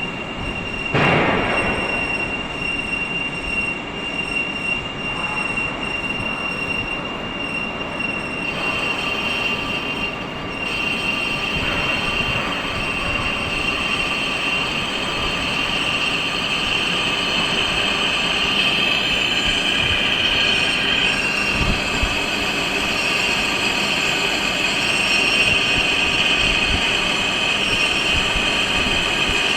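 Lathe turning a steel rolling-mill roll: a steady high-pitched metallic squeal from the cutting tool over continuous machining noise, the squeal growing stronger about a third of the way in.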